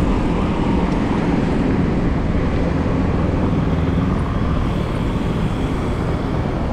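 Steady low rumble of wind buffeting the microphone of a handlebar-mounted camera on a moving bicycle, with road and traffic noise underneath.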